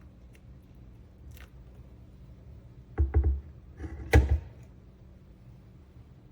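A few thumps and knocks: a quick cluster of two or three about three seconds in, then a single louder knock about a second later.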